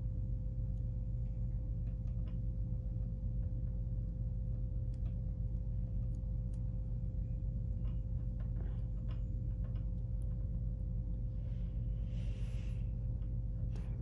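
Steady low hum, with faint scattered ticks and rustles from fingers untwisting and straightening the thin twisted-pair wires of a network cable. A slightly louder soft rustle comes near the end.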